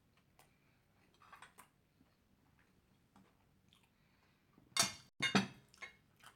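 Faint chewing and small clicks, then two loud clattering knocks about five seconds in as ceramic plates of food are lifted and set down on a table.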